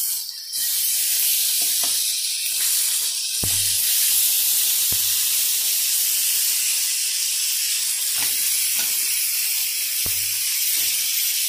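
Fish steaks sizzling in a frying pan with very little oil, a steady hiss, with a few short clicks as tongs turn the pieces.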